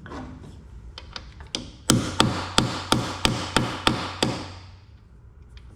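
A hammer tapping on a metal tool about eight times in quick succession, roughly three strikes a second, each ringing briefly, as a socket is knocked onto a worn bolt head.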